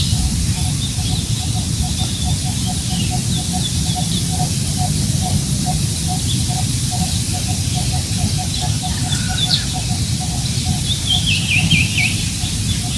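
Wind rumbling on the microphone beside a rice paddy, with birds chirping. A low note repeats about four times a second throughout, and a run of quick falling chirps comes near the end.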